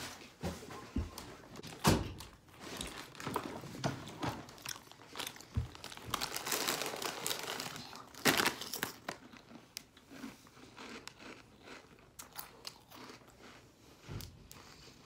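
A plastic snack bag being handled and crinkled while a crunchy snack is bitten and chewed, with many sharp crackles and a couple of louder knocks.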